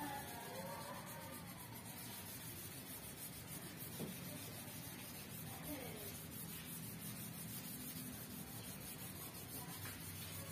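Hand sanding of a car's painted door panel with a sanding block: a soft, steady rubbing, over a low steady hum, with one short click about four seconds in.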